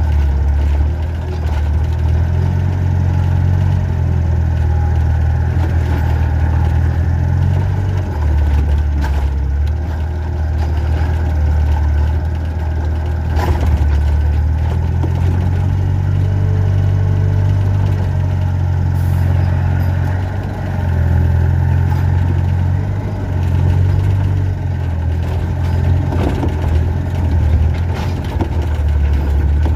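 Excavator's diesel engine running under working load. Its low drone swells and eases every few seconds as the hydraulics take up the load, with an occasional sharp knock, the clearest about 13 seconds in.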